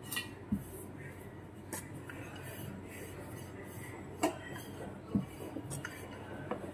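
A handful of light, scattered knocks and taps from a wooden rolling pin and hands working a thin, flour-dusted sheet of dough on a countertop.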